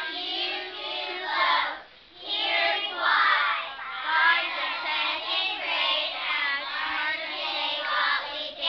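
Young children's voices singing, with a short break about two seconds in.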